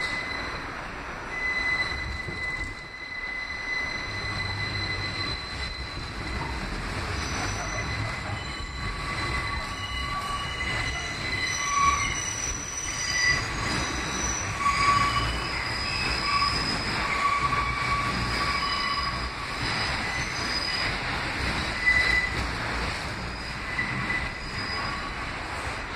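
R46 subway car running, with steel wheels squealing against the rails in high, wavering tones that come and go over the steady low rumble of the train, heard from inside the car. The squeals are loudest around the middle and near the end.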